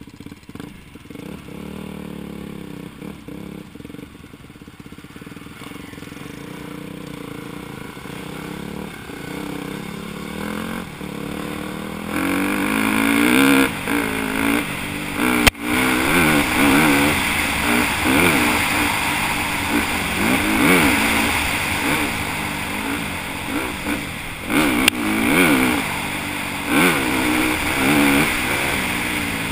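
Dirt bike engine running under way on a trail, revving up and down in repeated rising and falling sweeps. It is quieter for the first twelve seconds or so, then louder, with two sharp knocks, one about halfway through and one later.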